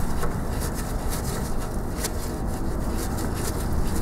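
Wrench turning out a motor mounting screw: light, irregular clicks of tool on metal over a steady low rumble.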